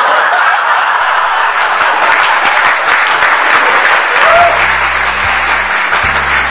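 Audience applauding steadily after a punchline; about four seconds in, background music with a bass line starts under the applause.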